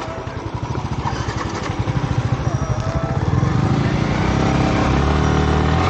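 Yamaha R15 V3's single-cylinder engine pulling the motorcycle along the road. It builds in loudness over the first few seconds, then runs at a steady pitch.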